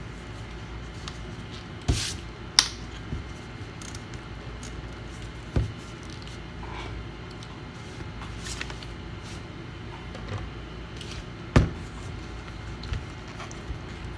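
Scattered sharp clicks and knocks of a laptop and its parts being handled on a workbench, the loudest about two-thirds of the way through, over a steady low hum.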